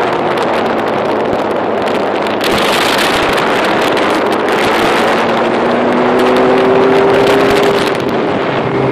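Wind rushing over the microphone of a moving motorcycle, with the engine's hum underneath; the engine note rises slightly a little past the middle.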